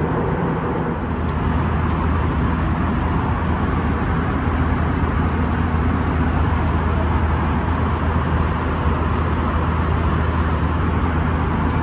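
Airbus A320 cabin noise at cruise: a steady, loud rumble of engine and airflow with a strong low hum, heard from inside the passenger cabin. The hum firms up about a second in.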